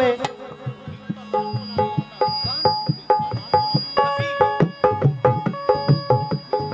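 Qawwali hand-drum accompaniment playing a fast, steady rhythm of pitched strokes, with the accompaniment filling out about four seconds in.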